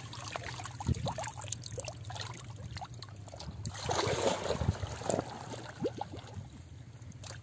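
Water splashing and sloshing as a person wades and gropes with his hands in shallow muddy water, in scattered small splashes with a busier stretch about four seconds in.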